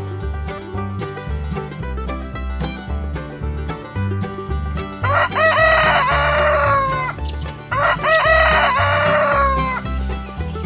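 A rooster crowing twice, each crow about two seconds long and falling away at the end. Before the first crow, crickets chirp in a fast even pulse, about five a second, which stops as the crowing begins; a steady low beat of background music runs underneath.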